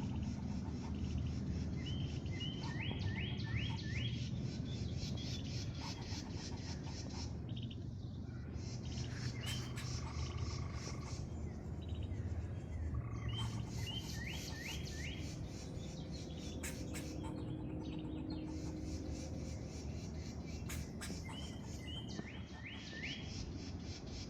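Squirrel calling in short chirps, about five quick high notes in a row, with the cluster repeated three times: near the start, about halfway through and near the end.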